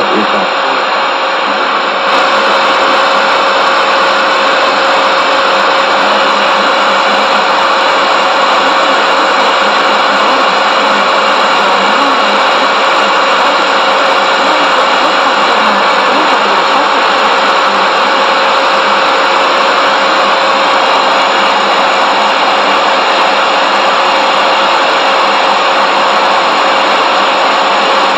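Radio receiver tuned to 27.340 MHz in the CB band, giving a loud, steady rush of static and interference with a constant whistle-like tone running through it. The uploader asks whether the interference is China Radio International.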